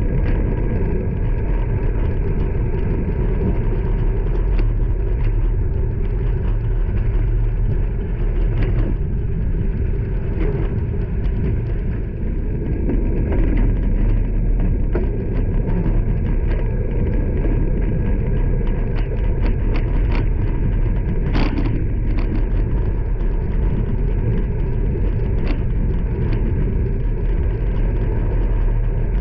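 Steady rumble of road and traffic noise heard from a road bike riding alongside motor traffic, with scattered light clicks and rattles.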